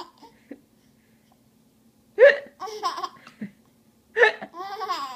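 A small child hiccups twice, about two seconds in and again about four seconds in, each hiccup followed by a run of giggling.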